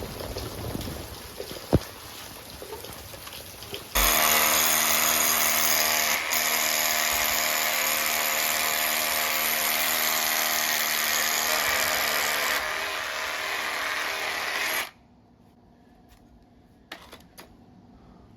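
Power drill running steadily at speed for about eleven seconds, dropping a little in level near the end before stopping abruptly. Light rain patters before it starts.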